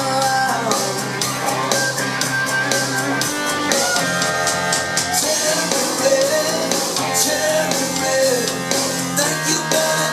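Rock song with a male singing voice, guitar and drums, played back through a Klein & Hummel Telewatt VS 56 valve amplifier and DIY loudspeakers.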